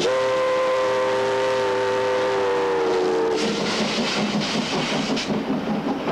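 Steam locomotive's chime whistle blowing one long blast of about three and a half seconds, sagging slightly in pitch as it dies away. The rattle and clatter of passenger coach wheels rolling past follows.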